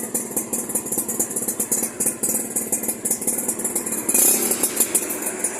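Suzuki Tornado's two-stroke single-cylinder engine idling through a PDK racing exhaust, with a rapid, crisp pulsing, the jingling 'kemrincing' note. About four seconds in the throttle is blipped briefly.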